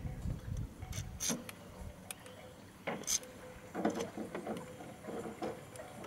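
An aerosol can giving a few brief hisses of spray into a car door's wiring connector, mixed with low thumps and small plastic clicks and knocks from handling the can and connector.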